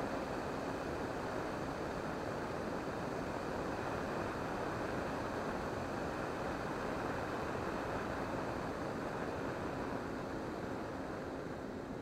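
Steady rushing noise of airflow and the electric-motor-driven propeller of a Volantex Ranger 1600 RC plane in flight, picked up aboard the plane. It eases slightly near the end as the plane banks down toward the field.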